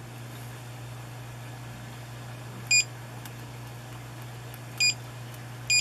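Three short, high beeps from the 3D printer's touchscreen, sounding as on-screen buttons are pressed. The first comes nearly three seconds in, and the last two come close together near the end.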